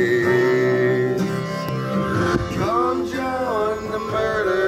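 A song with a male voice singing over guitar: one long held note, then a sung line with gliding pitch from about two and a half seconds in.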